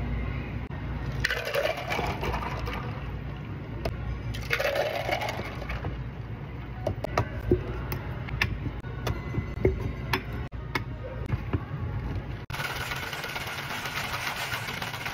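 Liquid being poured, twice in short pours with the pitch rising as the vessel fills, then a run of short sharp clinks and taps, and a longer pour near the end.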